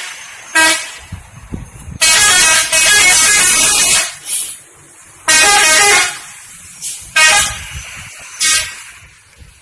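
Indonesian 'telolet' bus horn, a multi-tone musical air horn, sounding in repeated blasts: a short toot, a two-second run of quickly changing notes, then several shorter toots. Low vehicle rumble fills the gaps between blasts.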